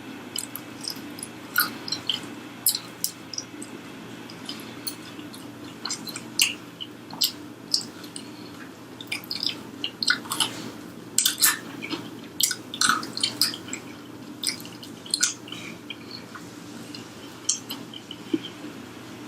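Close-miked chewing and eating of fried chicken: scattered wet mouth clicks and crunches, busiest in the middle stretch, over a steady low hum.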